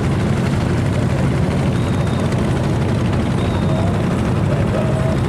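A steady, low engine drone, with a faint wavering tone coming in near the end.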